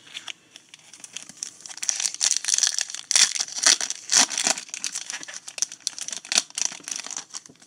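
Foil wrapper of a Topps Stadium Club trading-card pack being torn open and crinkled by hand: a dense, high crackling that builds after about a second, is loudest in the middle and stops just before the end.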